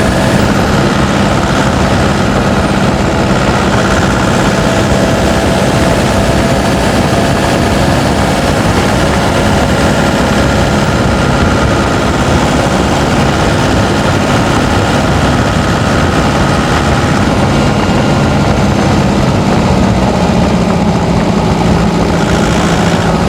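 Turbocharged pickup engine running steadily under load, heard through a microphone under the hood: a constant drone with steady higher tones above it.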